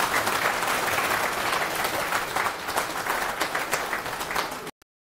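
Audience applauding in a lecture hall, the clapping steady until it cuts off abruptly near the end.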